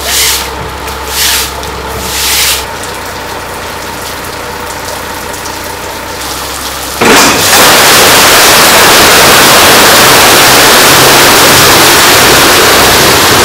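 A broom swishes three times across wet concrete over a low engine hum. About seven seconds in, a sudden loud rush starts as water and a load of mullet pour out of the back of the truck's tank onto the floor.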